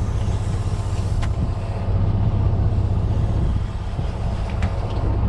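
Fishing boat's engine running steadily, a deep, even drone, with a few faint clicks over it.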